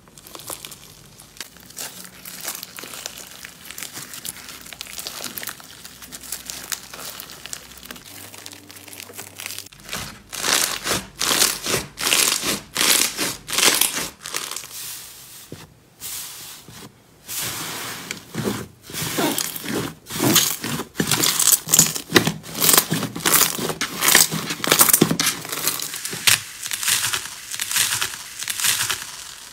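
Hands squeezing and kneading crunchy, textured slime, crackling and popping with each squeeze. The crackle is softer for about the first ten seconds, then comes in louder, rapid bursts, with a couple of brief pauses. Near the end a hand presses into slime packed with foam beads.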